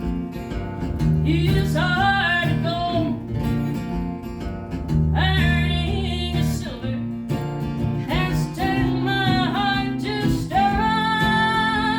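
Acoustic band playing a country-folk song: strummed acoustic guitar under a melody that comes in phrases, each held and bending in pitch.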